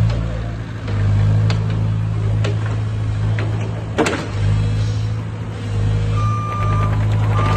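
JCB 51R mini excavator's diesel engine running under hydraulic load as the upper structure and boom swing round, its level dipping and swelling. A single sharp clunk about four seconds in, and near the end the travel alarm starts beeping at a steady on-off rate.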